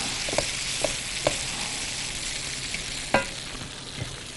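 Biryani filling frying in a pan with a steady sizzle while it is stirred, the utensil knocking against the pan about five times.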